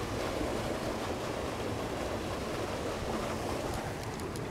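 Steady rushing of water pouring over a dam spillway, an even hiss with no break.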